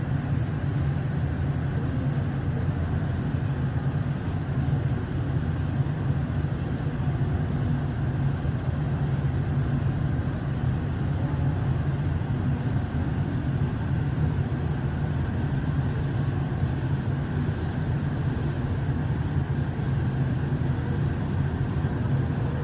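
Steady low mechanical drone of large fans running, unchanging throughout.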